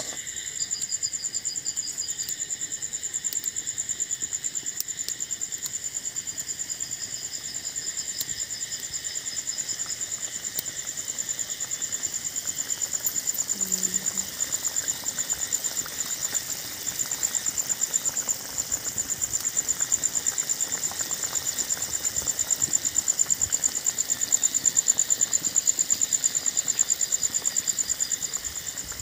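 Crickets chirping: a steady, high-pitched trill that pulses many times a second, with a second, lower insect trill coming and going.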